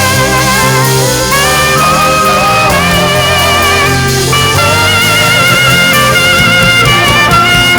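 Saxophone playing a slow gospel worship melody of held notes with a wavering vibrato, over a backing band with bass and drums.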